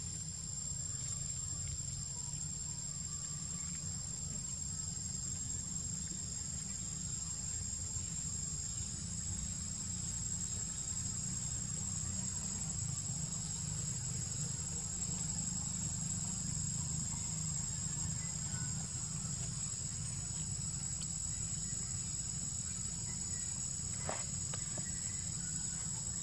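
Steady, shrill drone of an insect chorus with a second, lower band beneath it, over a low steady rumble; a couple of faint ticks near the end.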